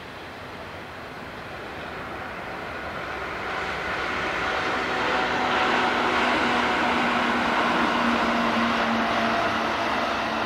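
Electric-hauled container freight train rolling past; the rumble of its wagons swells over the first five seconds or so and then holds steady, with a few faint steady hums.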